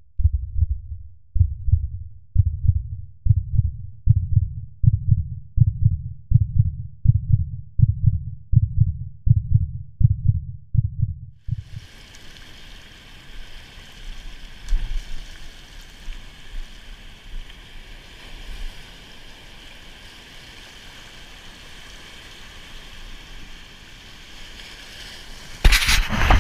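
A steady series of low, heartbeat-like thumps, an intro sound effect, that stops about eleven seconds in. Then surf washes over tidal rocks as a steady hiss, with a loud brief gust or splash near the end.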